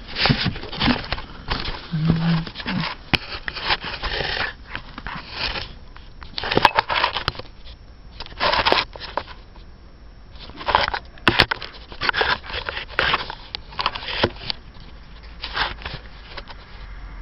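Irregular rustling and scraping noises in uneven bursts, with scattered sharp clicks, from handling and moving things around; the motorcycle's engine is not running.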